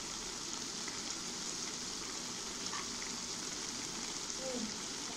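Grated carrots for gajar ka halwa sizzling steadily in an aluminium pot on the stove, the milk cooked off so the mixture has begun to fry.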